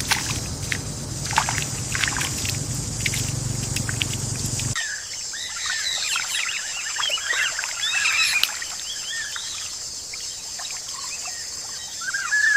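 Water splashing and sloshing with sharp clicks over a low rumble. About five seconds in it cuts to many small birds chirping busily over a steady high hiss.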